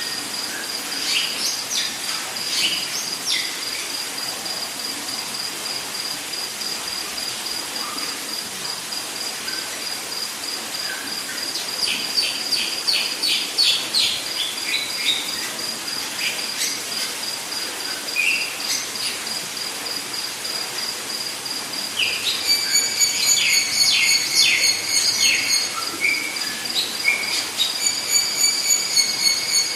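Rainforest ambience: an insect's steady, high, pulsing trill over a hiss of background insects, with bird calls scattered across it. Rapid runs of bird notes come midway and again through the last third.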